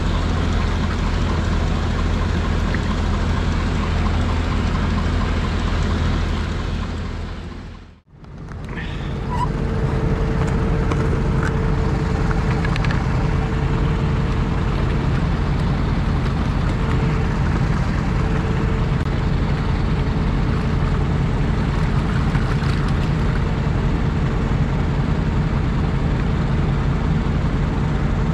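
Kubota tractor's diesel engine running steadily at a constant speed. The sound fades out and back in about eight seconds in, and after that the engine hum sits at a higher pitch, with a few light clicks over the next few seconds.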